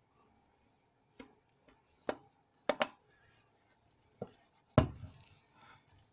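Wooden spatula knocking and scraping against a stainless steel bowl as a mashed potato mixture is stirred: a handful of short, sharp knocks, with a heavier, deeper knock about five seconds in.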